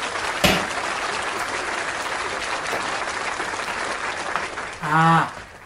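Applause: a steady wash of clapping, with a sharp knock about half a second in and a short vocal sound near the end.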